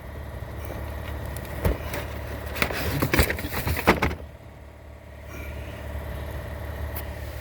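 A few sharp clicks and clinks of parts being handled, over a steady low hum.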